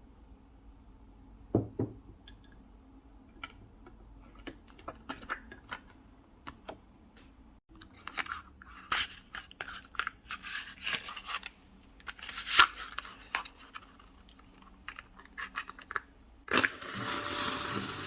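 Small handling sounds at close range: light taps, clicks and scratches, with a few sharper knocks and a longer rustle near the end.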